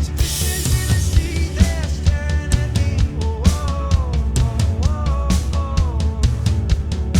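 Rock song with a singing voice, drummed along on an electronic mesh drum kit: a steady beat of kick, snare and cymbal hits, with a crash cymbal just after the start.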